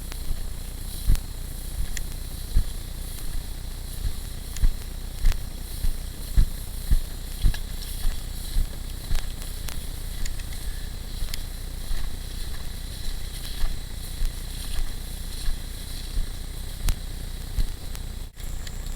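Footsteps of a player walking, picked up as low thuds through a head-mounted camera, at times about two a second, over a steady outdoor hiss.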